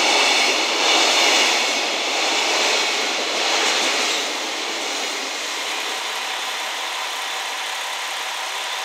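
Container wagons of a freight train passing at speed: a loud rumble of wheels on rail that swells and fades several times, dying down about four seconds in as the last wagons go by. After that comes a steady, quieter sound, the diesel idle of a standing KiHa 40 series railcar.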